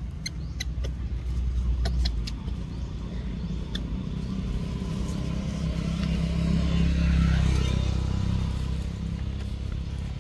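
A motor vehicle passing nearby: a low engine rumble that swells to its loudest about seven seconds in, then eases off.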